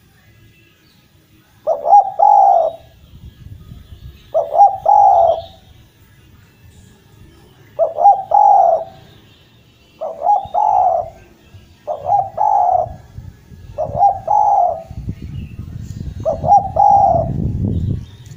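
Spotted dove (derkuku) cooing persistently: a phrase of two or three quick notes ending in a longer coo, given seven times, roughly every two seconds. Faint high chirps of small birds sound behind it, and a low rumble rises in the last few seconds.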